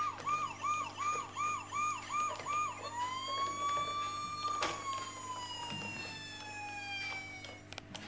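Electronic toy siren from the Playmobil 70053 rescue trailer's sound module, played through its small speaker. It gives a fast warbling yelp for about three seconds, then switches to a slow wail that rises and then falls away. A sharp click sounds about halfway through.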